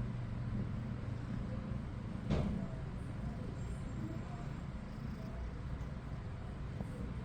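Steady low hum, with one short knock a little over two seconds in.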